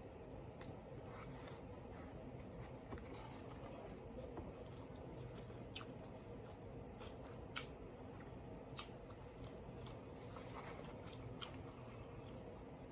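Faint close-up chewing and mouth sounds of someone eating a mouthful of food, with scattered small clicks, over a low steady hum.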